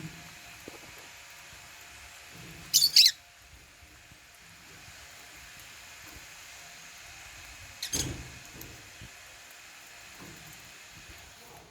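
African lovebirds giving shrill chirps: a quick cluster of loud calls about three seconds in and one short chirp near eight seconds.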